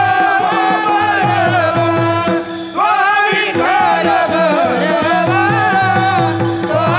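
A woman singing a Marathi devotional abhang in an ornamented, sliding melody, over a steady held drone note and hand-drum strokes keeping the beat; the voice breaks off briefly for a breath about two and a half seconds in.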